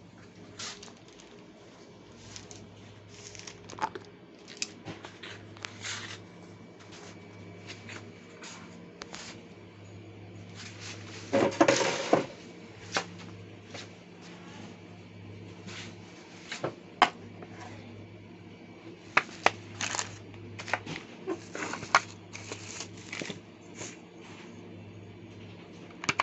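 Objects being handled at close range: scattered clicks, taps and rustling, with a louder stretch of rustling and scraping about eleven seconds in, over a steady low hum.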